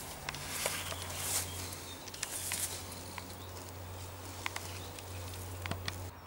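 Faint outdoor background: a low steady hum with scattered small clicks and ticks.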